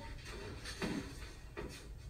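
A few faint footsteps of high heels on a hardwood floor, about three quarters of a second apart, over a low room hum.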